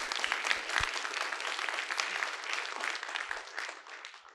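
Audience applauding: many hands clapping in a dense, even patter that dies away near the end.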